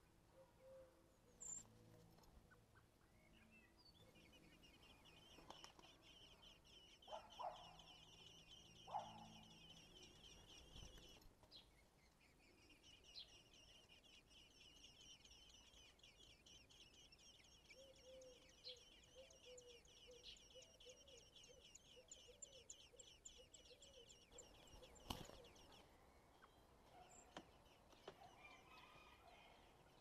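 Common blackbird nestlings begging: a faint, rapid, high-pitched chittering in two long runs, broken briefly about eleven seconds in. It stops about twenty-five seconds in with a single sharp click.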